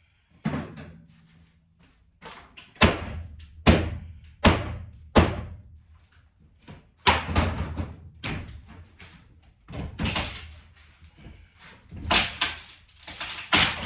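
A series of about a dozen heavy knocks and bangs, spaced irregularly, each cut short with a brief ring.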